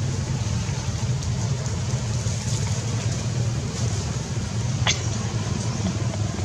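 Steady low rumble of background noise, with one brief sharp sound about five seconds in.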